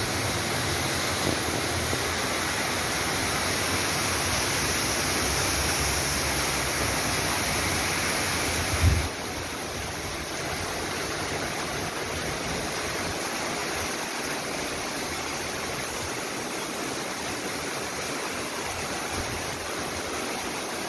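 Torrential rain pouring down steadily. A brief low thump about nine seconds in, after which the rain sounds a little softer.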